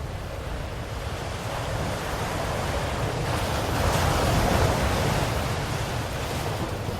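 Ocean waves breaking on a shore: a steady wash of surf that swells into a louder breaking wave about four seconds in, then eases back as it recedes.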